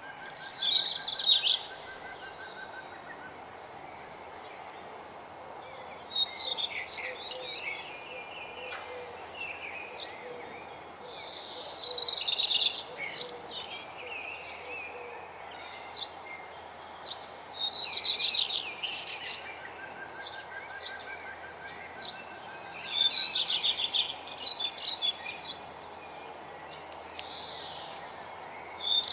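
Songbird singing short, bright, rapid phrases about every five to six seconds. Twice a fainter, lower, even trill comes in, over a steady background hiss.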